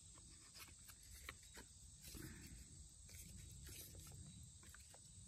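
Near silence, with faint scattered clicks and light rubbing of the plastic parts of a string-trimmer bump-feed head being handled and fitted together.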